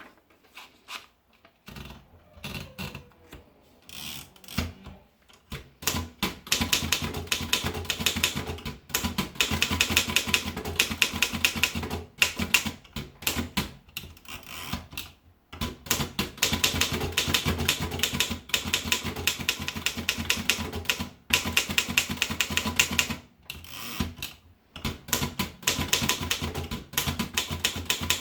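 Torpedo 17A typewriter being typed on. There are a few scattered key clicks at first, then from about six seconds in fast, dense runs of key strikes broken by short pauses every few seconds.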